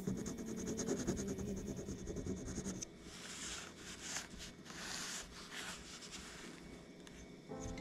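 A gold-coloured ring scraped on a black touchstone to leave a streak for an acid test, a quiet fine scratching for the first three seconds or so. After that come softer rubbing and handling sounds as the stone is moved.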